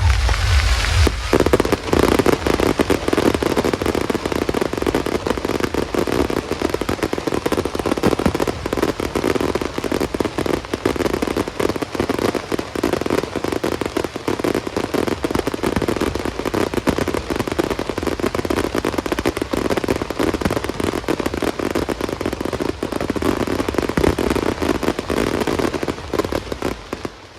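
Fireworks display going off in a dense, unbroken barrage of many bangs and crackles a second, dying away near the end.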